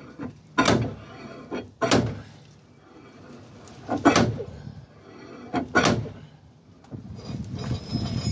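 Slide hammer bolted to a Toyota RAV4's front wheel hub, its weight slammed against the stop four times, one to two seconds apart, with lighter knocks in between, to drive the hub out of the front wheel bearing.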